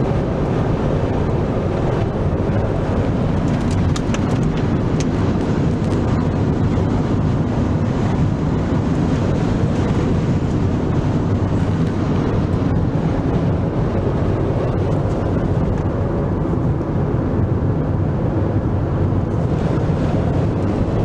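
Strong gust-front wind ahead of a dust storm buffeting the microphone: a loud, steady, low rumbling rush with no let-up.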